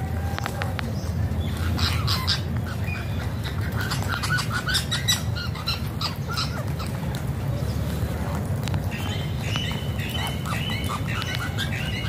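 A flock of rose-ringed (Indian ringneck) parakeets squawking and chattering with short, harsh calls, closely packed, with a quick run of repeated calls near the end. A steady low rumble runs underneath.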